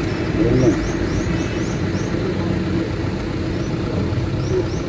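Small birds chirping in quick runs of short rising chirps, about a second in and again near the end, over a steady low hum and rumble.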